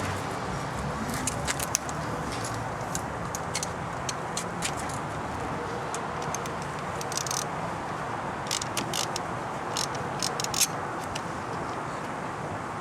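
Scattered small clicks and rattles from hands and tools working at the wiring and connectors in a car's engine bay, over a steady background hiss.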